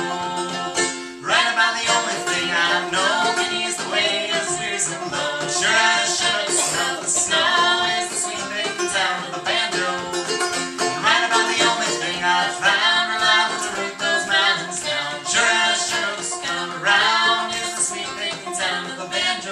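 Folk song played live: a banjo picked in a steady driving rhythm, with a man and a woman singing together in harmony.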